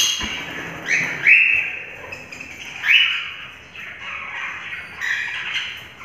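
Pet parrots calling in an aviary: about five loud calls a second or two apart, several rising quickly at their start.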